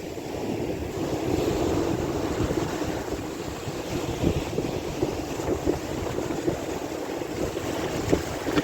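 Sea waves washing, with wind buffeting the microphone in a steady rough rumble that swells about a second in.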